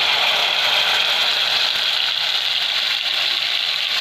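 Wet green masala paste sizzling steadily in hot butter in a kadhai, a continuous crackling hiss as it starts to fry.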